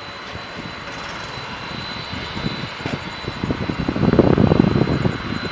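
Boeing 767-300ER freighter's jet engines rumbling with a rough crackle on the runway, swelling to their loudest about four seconds in.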